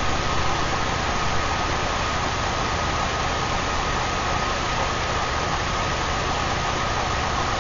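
Steady, even hiss with a faint high steady whine running under it: the background noise of a glassworking bench, where the torch and ventilation are running while the glass is shaped.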